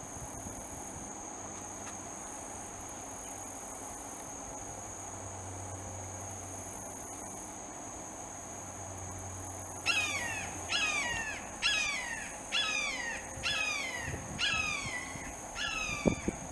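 Red-shouldered hawk giving a rapid series of about eight loud, descending 'kee-ah' calls, a little under a second apart, starting about ten seconds in. Under them and before them, a steady high insect drone.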